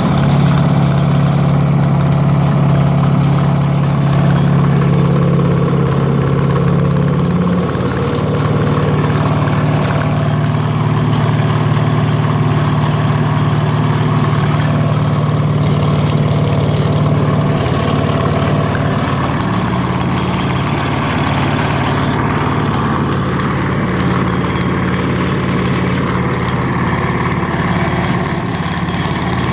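Wood chipper engine running steadily on compressed biogas fed directly into the carburettor, its note shifting slightly a couple of times.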